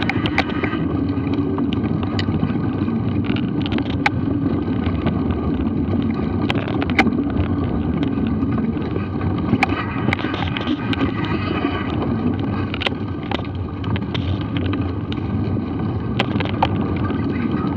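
Mountain bike ridden along a dirt forest singletrack, picked up by an action camera on the bike: a steady rumble from the tyres and wind on the microphone, with frequent sharp clicks and rattles of the bike over bumps.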